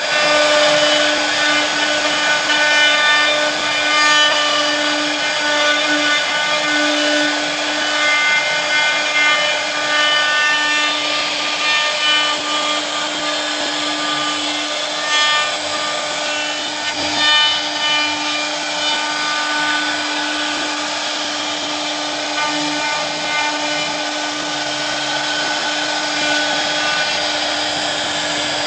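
CNC router cutting a 2.5D relief design: the spindle gives a steady whine while the bit rasps through the workpiece, the cutting noise swelling and easing slightly as the tool moves.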